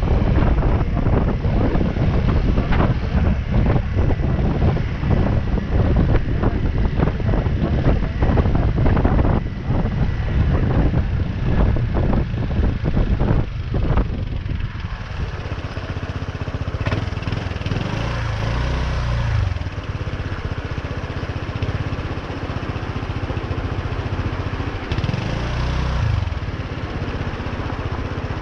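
Motorcycle riding, with wind buffeting the camera microphone over the engine. About halfway through the wind drops as the bike slows, and the engine's low note comes through more clearly, rising a couple of times.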